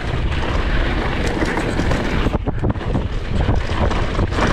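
Wind buffeting the camera microphone while a Polygon XquareOne DH9 downhill mountain bike runs fast down a dirt singletrack, with a steady low rumble from the tyres and short knocks and rattles from the bike over bumps.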